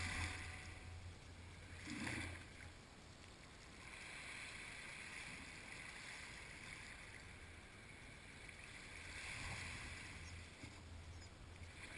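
Small waves lapping and washing up onto a sandy beach, faint, swelling and falling back a few times.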